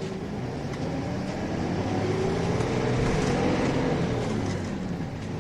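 Nissan Diesel Space Runner RM (KC-RM211GSN) city bus's diesel engine heard from inside the cabin, pulling with its pitch rising over the first few seconds and then easing back down near the end. Its revving carries a discordant note that the owner puts down to the engine's age.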